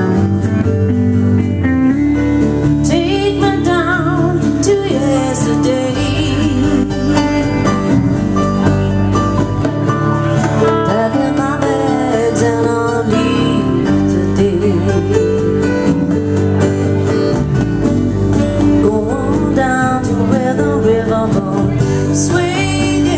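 Live band music: electric and acoustic guitars, electric bass, keyboard and drums playing a country-rock song at a steady beat, with a wavering lead line over the chords in several stretches.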